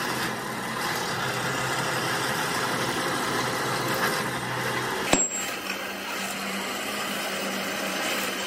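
Belt-driven bench drill press running steadily as it drills a metal part. A single sharp click about five seconds in, after which the machine's hum is slightly higher.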